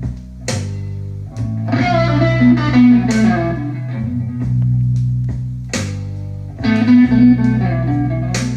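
Slow blues rock played through Pioneer HPM-100 loudspeakers: held bass notes under an electric guitar solo, with two bursts of bent lead phrases.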